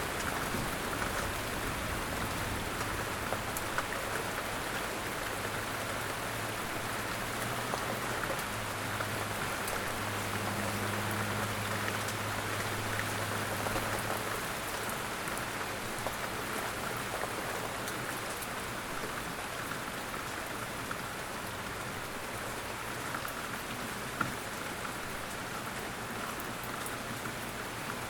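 Steady rain falling, an even hiss with fine pattering drops, over a low hum that fades about halfway through.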